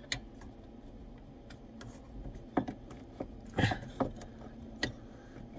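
A few scattered small metallic clicks and taps: a tool and the clutch pedal return spring knocking against the Powerstar 120 tractor's clutch pedal linkage as the spring is worked toward its hook. The loudest is a quick double click a little past halfway.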